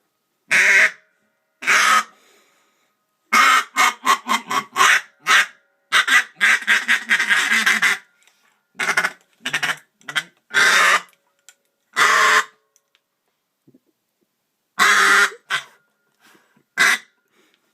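Duck call blown in a hail (comeback) call for mallards: loud quacks, two single ones, then fast runs of quacks, then single quacks spaced further apart.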